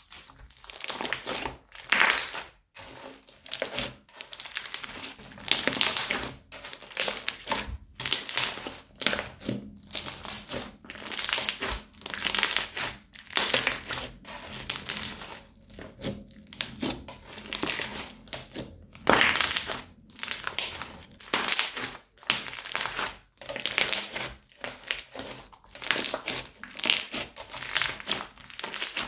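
Thick brown crunchy slime studded with small beads being squeezed, pressed and stretched by hand, giving irregular crackling bursts about once a second.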